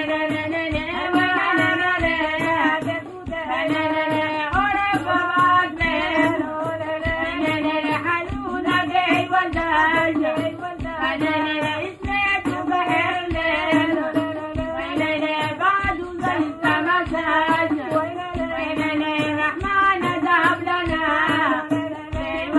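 A group of women singing a traditional Harari song together, one voice leading and others joining, over a steady beat from a tambourine and hand percussion.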